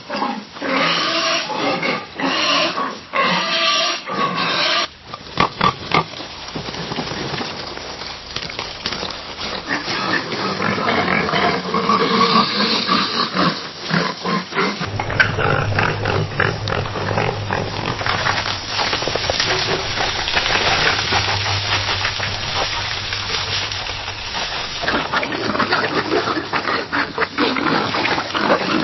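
Pigs oinking and grunting in a run of separate recordings that change about every ten seconds.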